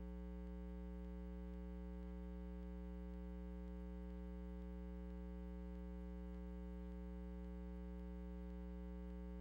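Steady electrical mains hum, a low buzz with a stack of even overtones that never changes, with no other sound.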